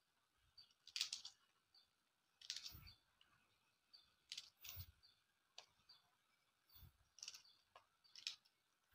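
Knife cutting a green chili by hand: faint crisp clicks, about ten of them at an uneven pace of roughly one a second.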